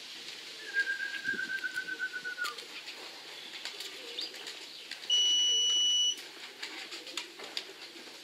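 Pigeons cooing around the loft. Early on a bird gives a rapid trill that falls slightly at its end. About five seconds in, a steady electronic beep lasts about a second and is the loudest sound.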